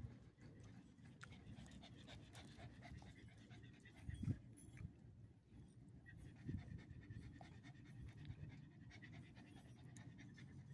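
A pug panting faintly, its tongue out. A dull thump about four seconds in, and a smaller one at about six and a half seconds.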